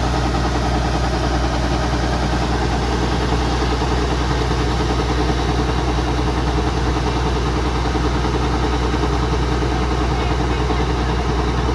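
Kubota DC105X combine harvester's diesel engine running steadily, with a constant low hum and an unchanging level.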